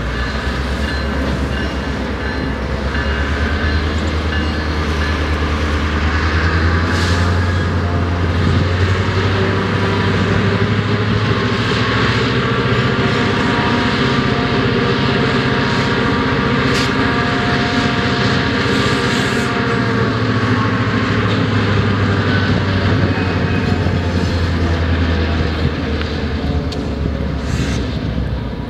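EMD GP38-2 diesel-electric locomotive, its 16-cylinder two-stroke 645 engine running with a steady low drone as it slowly shoves a cut of intermodal cars, with the rumble of the moving train.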